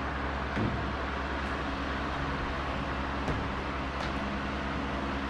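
A steady motor hum with a few faint ticks over it.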